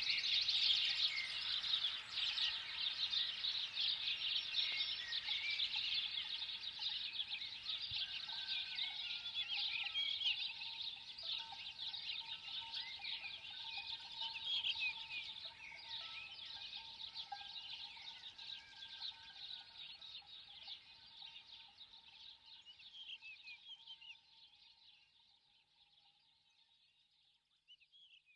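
A dense chorus of many small birds chirping and twittering all at once, fading out gradually over the last several seconds.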